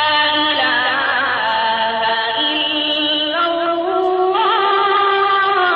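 Recorded azan, the Islamic call to prayer, playing from an azan alarm clock: a single voice chanting long held notes with wavering ornaments, stepping up in pitch a little past halfway.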